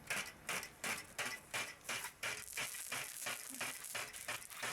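Water spurting in rhythmic pulses, about four a second, turning into a steadier spray hiss about two seconds in, as the water flow gets going.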